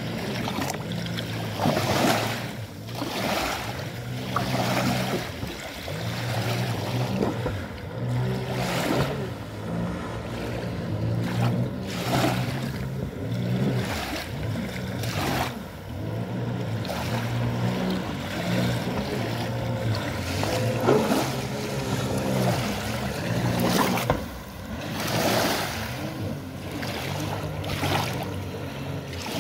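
Jet ski engine running at speed across the water, a steady drone that wavers in pitch as the rider turns, with repeated rushes of noise over it.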